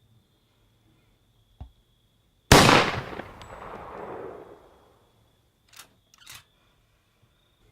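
A single gunshot from a deer-hunting gun, its report echoing and fading out over about two seconds; the shot that dropped a doe. A faint click comes about a second before it and two short knocks a few seconds after.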